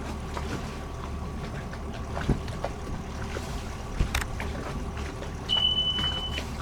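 Steady low hum of a boat under way, with a few sharp knocks and one high, steady beep about a second long near the end.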